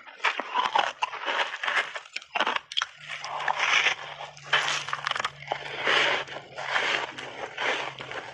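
Close-miked biting and chewing of a crunchy, matcha-powder-coated milk-powder chunk: a quick run of crunches, about two a second.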